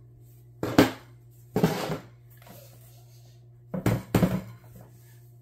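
HK-pattern rifles being handled on a padded workbench mat, with a few short knocks and clatters as they are lifted, shifted and set down. The knocks come about a second in, near two seconds, and a cluster around four seconds.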